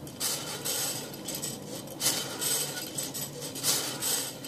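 Hand-cranked metal-rod wave machine running, its rods and crank mechanism clattering and rubbing with a metallic clink. The rattle comes in surges about every one and a half seconds.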